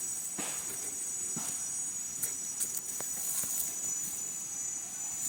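Steady high-pitched chirring of an insect chorus, with a few faint footsteps.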